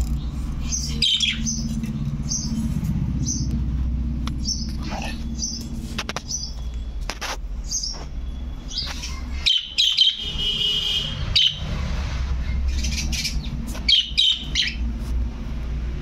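Budgerigars chirping: repeated short, high chirps, turning into a denser warbling chatter about ten seconds in and again near the end, over a steady low hum.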